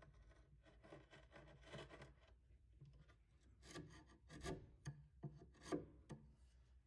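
Hand-held bench chisel paring wood from a shallow hinge mortise: a string of short, quiet scraping strokes, the strongest about four to six seconds in.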